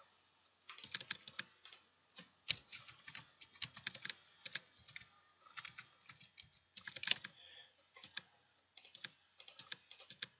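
Computer keyboard typing: irregular runs of key clicks with short pauses between them, the loudest single stroke about two and a half seconds in.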